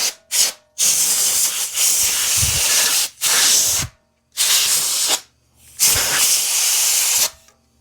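Repeated hissing blasts from a pressurised nozzle: two short puffs, then four longer blasts of one to two seconds each, used to clear debris from around a freshly pressed-in wheel bearing.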